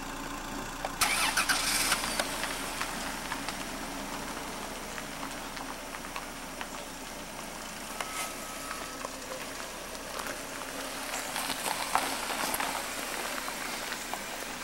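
Vehicle engine running steadily, with a louder rush of noise about a second in and a smaller one around twelve seconds.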